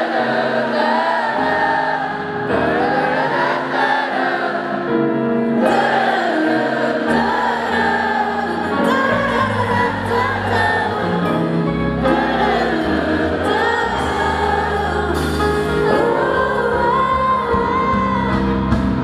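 A female pop singer singing a ballad live in concert, with held keyboard chords and a bass line behind her voice.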